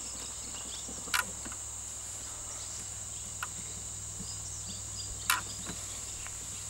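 A few sharp metallic clicks from a wrench on the belt tensioner pulley bolt as it is tightened, the loudest about a second in and about five seconds in, over a steady high-pitched whine in the background.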